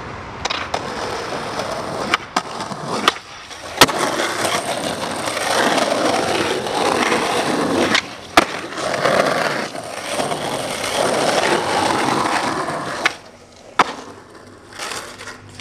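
Skateboard wheels rolling over rough asphalt, broken by sharp cracks of the tail popping and the board landing as the skater ollies over curbs. The loudest crack comes about four seconds in, and a pop and landing come close together about eight seconds in. The rolling fades after about thirteen seconds.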